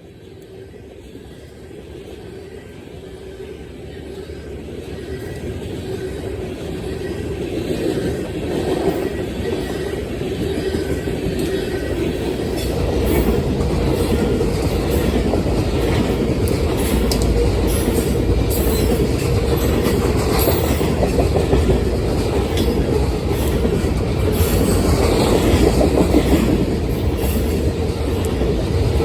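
Loaded BNSF coal train approaching and passing, its rumble growing louder over the first dozen seconds and then holding steady as the wheels clatter over the rail joints.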